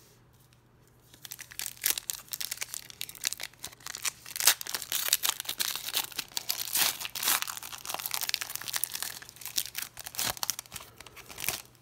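Foil wrapper of a Panini Prizm football card pack crinkling and tearing as it is ripped open by hand, starting about a second in.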